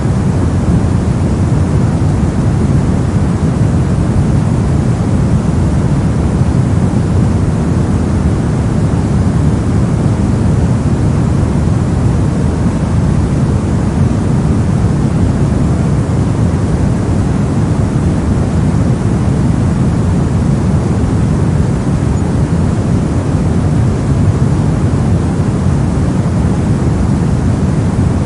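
Brown noise: a steady, deep, even rumbling hiss with most of its energy in the low end, unchanging throughout.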